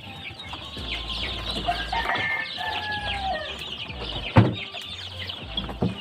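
A dense chorus of young chicks peeping in plywood brooder boxes, with a few longer drawn-out calls around the middle. Two sharp knocks cut through, about four and six seconds in.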